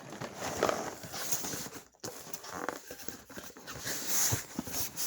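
Cardboard cereal boxes being handled and shifted about: irregular rustling and scraping with light knocks, cutting out briefly about two seconds in.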